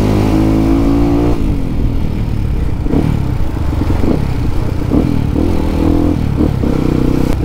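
Yamaha WR155R supermoto's single-cylinder engine under way. It runs steadily, the revs drop sharply a little over a second in, then rise and fall several times in quick succession before it settles into a steady pull again near the end.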